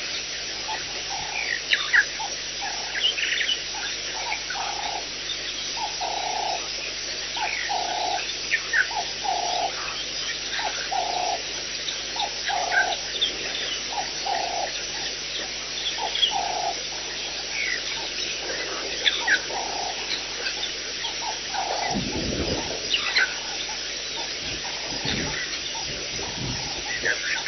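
Bush birdsong: a short, low call repeated about once a second, with scattered high chirps from other birds over it. The repeated call stops about 22 seconds in, and a few low rumbles follow.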